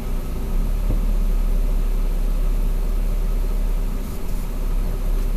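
Steady low engine rumble and road noise of a semi truck, heard inside its cab.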